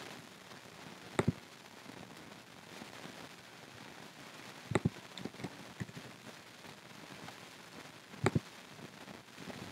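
Computer mouse and keyboard clicks: a sharp double click about a second in, another near the middle followed by a few lighter taps, and a third near the end, over a steady hiss.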